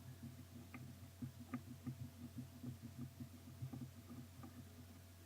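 Faint, irregular small clicks and ticks of a small screwdriver working tiny screws out of an iPhone 3GS screen assembly, over a steady low hum.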